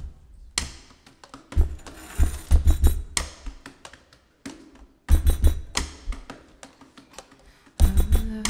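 Beatboxing into a microphone: deep kick-drum thumps with snare-like and hi-hat-like clicks and hisses in an uneven rhythm, breaking off briefly about halfway. Near the end a voice comes in with a held hummed note.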